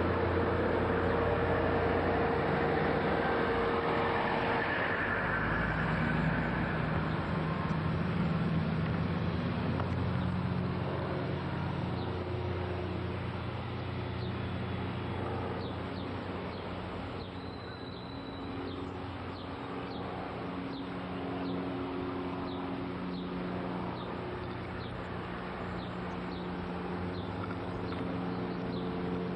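A motor vehicle engine running steadily, with a regular clicking joining about twelve seconds in, about three clicks every two seconds.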